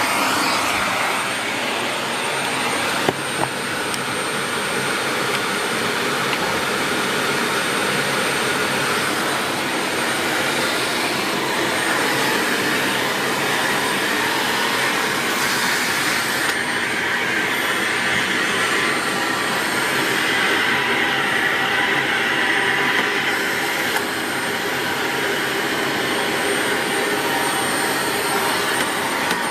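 Dyson Light Ball Multi Floor bagless upright vacuum cleaner running continuously: a steady rushing whirr with a thin high whine, the sound of the airflow changing now and then as it is worked over the floor. A single sharp click about three seconds in.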